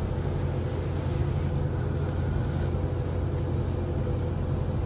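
Steady low hum, as of a running fan or motor, unchanging throughout.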